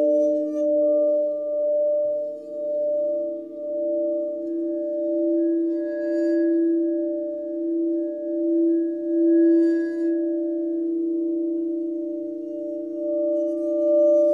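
Singing bowls ringing in long overlapping tones, the lowest with a slow wavering pulse. Fresh strikes add a brighter ring about six and nine and a half seconds in.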